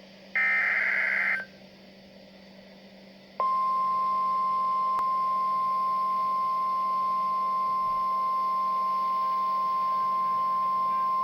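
Emergency Alert System weather-radio broadcast: a one-second burst of warbling SAME data tones, then, about three seconds in, a single steady high-pitched alert tone begins, the NOAA Weather Radio 1050 Hz warning alarm that signals a warning is about to be read. A faint low hum runs underneath.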